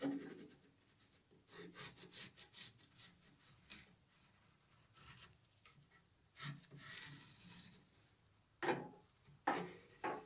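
Pencil scratching on a wooden board as it traces around a round template, in irregular strokes. Two light knocks come near the end.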